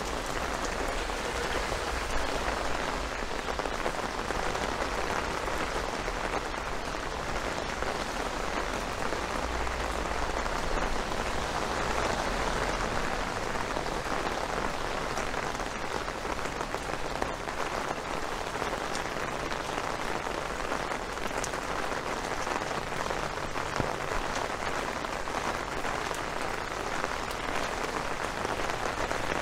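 Steady rain falling, a dense, even hiss with no breaks, with a low rumble underneath that fades about halfway through.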